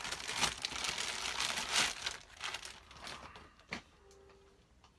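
Plastic packaging crinkling and rustling as metal detector parts are unpacked, easing off about two seconds in, followed by a few light clicks and knocks.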